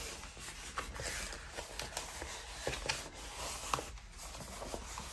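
Faint rustling and small clicks of plastic packaging and a rolled diamond painting canvas being handled and unpacked.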